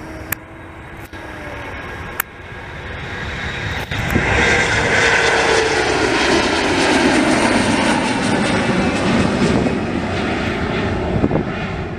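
Regional jet, which the spotter takes for a Bombardier CRJ, passing close by. The engine rumble builds, is loudest through the middle, and its tone slides down in pitch as it goes past before easing near the end.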